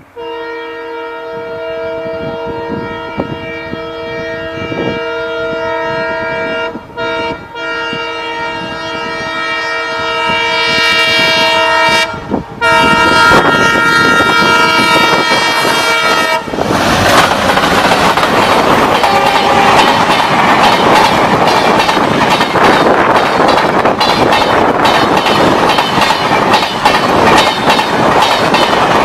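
Horns of a pair of WDM3A Alco diesel locomotives sounding nearly continuously for about sixteen seconds, with a few short breaks, growing louder as the train approaches at speed. The express then rushes past: a loud rumble with the clickety-clack of wheels over rail joints.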